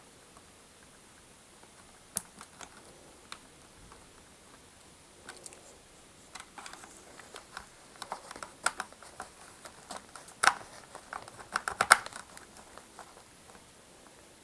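Small clicks and taps of plastic and metal parts being handled as a cable clamp is fitted onto a vacuum cleaner's mains cable and the cable is pressed into the plastic housing. A few clicks at first, then busier clicking in the second half, the loudest about two-thirds of the way through.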